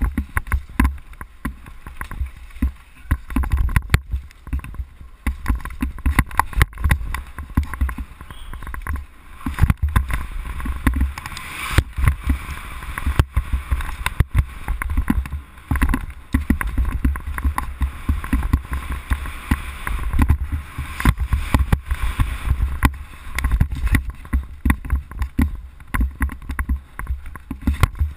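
Downhill mountain bike descending a rough dirt forest trail: continuous, irregular rattling and knocking from the bike over bumps and roots, over a steady low wind rumble on the helmet camera's microphone.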